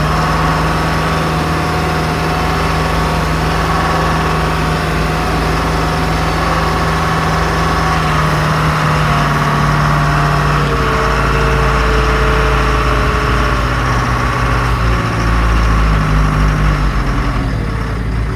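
John Deere backhoe's diesel engine running steadily while the machine drives, its note dropping slightly about halfway through and changing again near the end.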